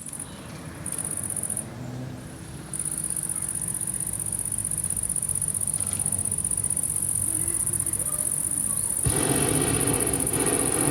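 A chorus of insects chirring in one high, steady buzz, patchy for the first few seconds and then continuous. About nine seconds in, a louder, even rushing noise starts and keeps going underneath it.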